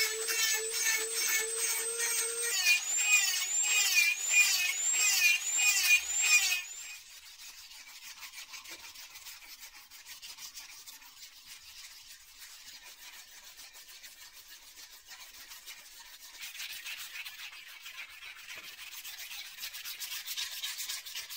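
A power tool runs with a steady whine that wavers in a repeating pattern, then stops abruptly about six and a half seconds in. After that comes quieter, steady rubbing and scraping, like metal being sanded or filed by hand, which grows louder near the end.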